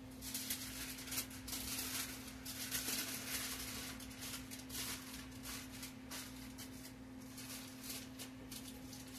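Aluminum foil crinkling in irregular crackles as it is wrapped around a large potato, thinning out over the last few seconds. A steady low hum runs underneath.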